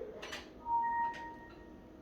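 Single electronic beep from the ultrasound machine, one steady tone lasting about half a second and then fading, with a click just before it.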